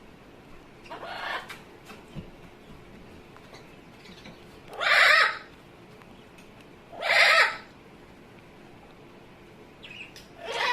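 Amazon parrot giving a series of short, harsh calls: a softer one about a second in, two loud ones midway about two seconds apart, and another near the end.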